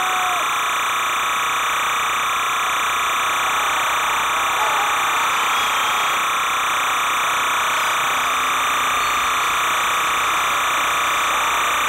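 A steady, even buzz on an old soundtrack holds at one level throughout, with faint voices barely showing beneath it.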